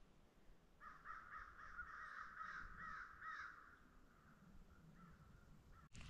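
A crow cawing faintly at dawn: a quick run of about eight caws starting about a second in, then a few weaker calls.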